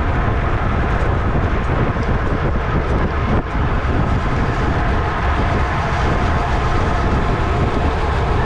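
Steady, loud rush of wind over the microphone of a camera mounted on a road bike racing at about 25 mph, mixed with the hum of tyres on pavement.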